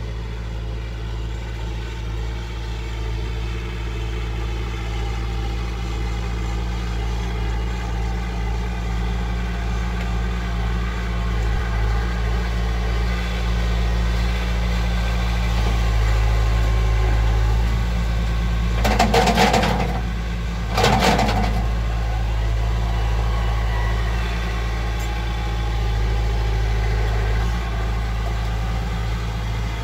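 Farm tractor engine idling steadily, its hum swelling slowly over the first half. Two short, loud bursts come a little past the middle.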